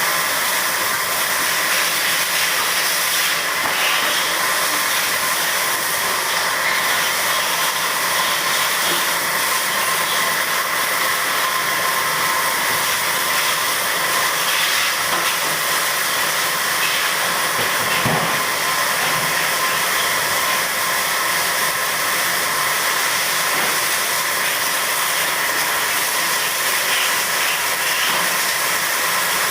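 Steady mechanical hissing with a faint, even whine, unchanging throughout.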